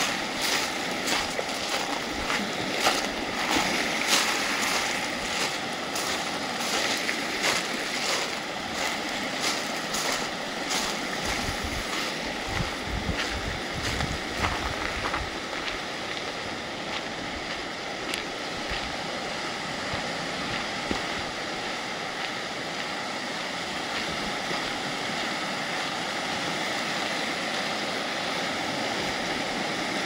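Lake Michigan waves breaking and washing over a rocky pebble shore in a steady surf, with wind gusting on the microphone. For roughly the first ten seconds, crunching footsteps on the pebbles come through at a walking pace.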